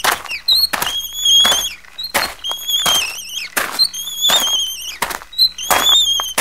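Wooden cart wheel squealing and knocking in a steady rhythm, one high wavering squeak with a knock a little more than once a second, as the cart is pulled along.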